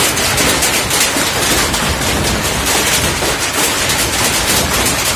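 Heavy hail falling: hailstones pelting down in a dense, rapid, irregular clatter of impacts.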